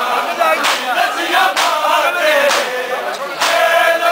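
A crowd of men chanting a Punjabi noha in chorus while beating their chests in unison (matam). A sharp collective slap lands about once a second under the singing.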